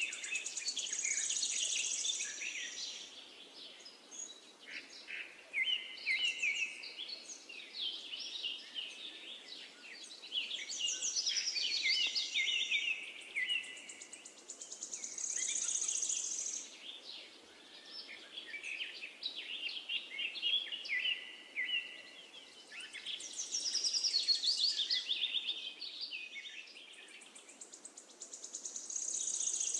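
Birds chirping and singing in quick trills, in phrases that swell and fade every few seconds.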